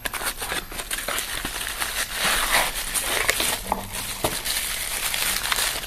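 Packaging rustling and crinkling as a small cardboard accessory box is opened and its contents are handled, with many small crackles and clicks.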